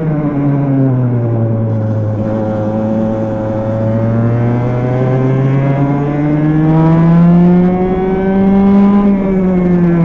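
Kart engine heard from on board, its pitch dropping as revs fall in the first couple of seconds, then climbing steadily as the kart accelerates through a bend, and easing off slightly near the end.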